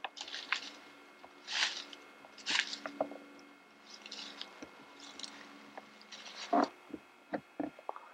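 Dry grass and brush rustling and crunching as long-handled loppers work through it, with several sharp snaps in the last couple of seconds.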